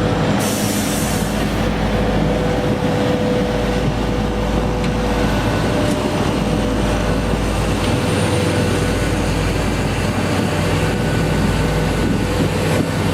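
A heavy machine's engine running steadily, with a constant mechanical rumble and noise.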